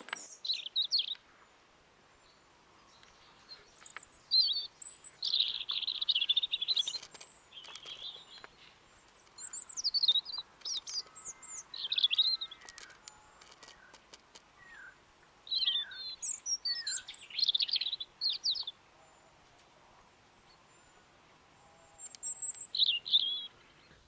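Small songbird singing: bursts of high, quick warbling and chirping phrases a second or two long, with short pauses between them.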